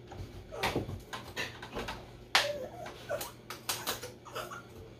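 Irregular knocks, scrapes and rustles of a person climbing in through a window over the sill, with one sharp knock a little over two seconds in.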